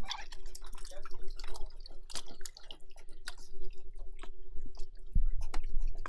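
Wet mud and water being scooped with a long-handled metal pan and tipped into a bucket: sloshing, dripping and squelching with scattered small clicks, and a few low thuds about five seconds in. A steady faint hum runs underneath.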